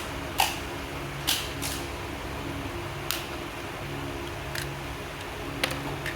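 Plastic housing of a Costar T300 doorbell being pried open with a tool: about six sharp clicks and snaps at uneven intervals as the snap-fit locking clips are forced apart, over a low steady hum.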